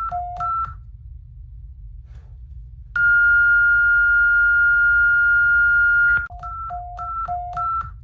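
Emergency alert alarm tones: quick beeps alternating between a high and a low pitch, a pause of about two seconds, then one steady high tone lasting about three seconds, followed by the alternating high-low beeps again, over a faint low rumble.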